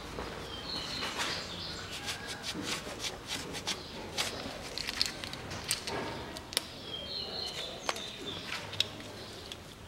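Scattered sharp clicks and taps with cloth rustling as a rag wipes over the engine mount and subframe. A bird chirps faintly in the background twice, about a second in and again near the end.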